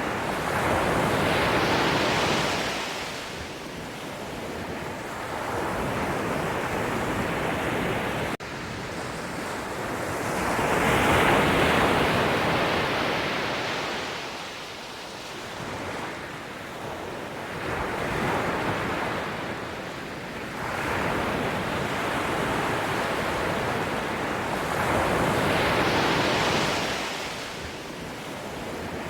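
Ocean surf: waves breaking and washing back, swelling and fading about every seven to eight seconds.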